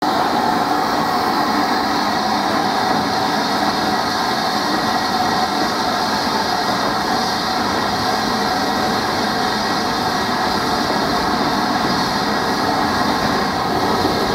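LMS 'Jinty' 0-6-0 tank engine No. 47406 going by with a steady hiss of steam, followed by its goods wagons rolling past on the rails.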